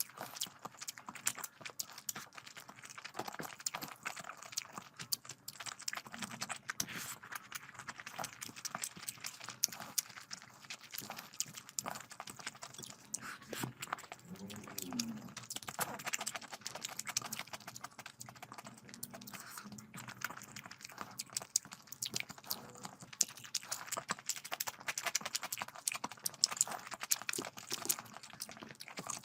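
Close-miked eating of curry with rice: wet chewing and lip smacking as a dense stream of small clicks, with a short low hum about halfway through.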